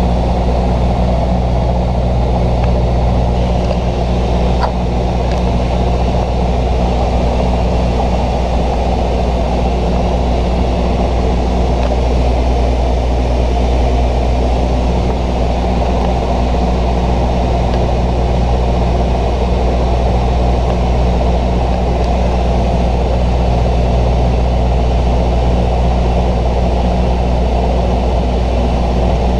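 Steady drone of a Bombardier Dash 8-100's twin turboprop engines and propellers in cruise or descent, heard inside the cockpit as an even low hum under a rushing noise.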